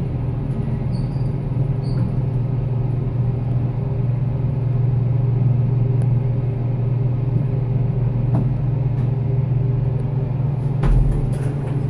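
Larsen hydraulic elevator heard from inside the cab while travelling: a steady low hum, with a short low thump about eleven seconds in.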